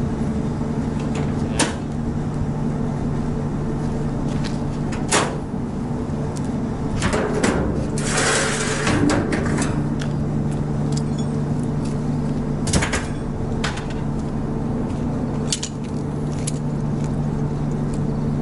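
An engine running steadily at idle, with scattered knocks and clatter and a short rush of hiss about eight seconds in.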